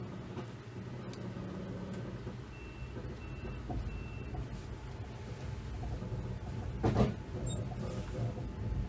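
Steady low rumble inside a sleeper-train carriage, with three short high beeps a couple of seconds in and a single sharp knock about seven seconds in.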